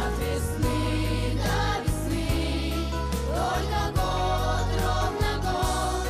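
Upbeat pop song with a steady drum beat, playing loud.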